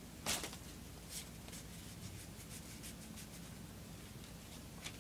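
Dragon Ball Z trading cards handled and sorted by hand: a short rustle about a third of a second in, then faint scattered flicks and slides of card against card.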